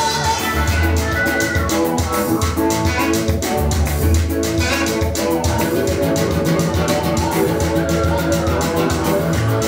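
Up-tempo gospel dance music with guitar, bass guitar and a steady drum beat.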